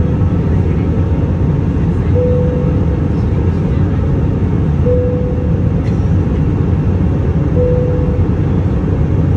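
Steady low rumble inside an Airbus A319's cabin in climb: engine and airflow noise heard at a window seat over the wing. A short steady tone repeats about every three seconds on top of it.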